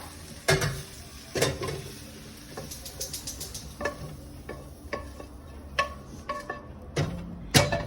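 A cooking utensil scraping and knocking against a frying pan as fried chicken pieces are scooped out into a pot, with a light sizzle underneath. About six sharp clanks, the loudest near the end, and a quick run of scraping in the middle.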